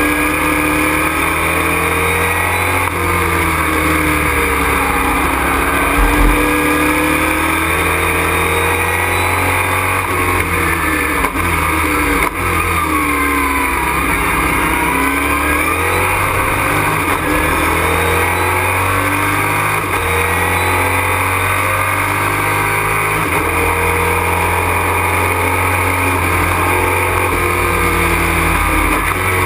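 Super Truck race truck's engine heard from inside the cockpit at racing speed, its pitch rising and falling repeatedly with throttle and gear changes. A brief low thump comes about six seconds in.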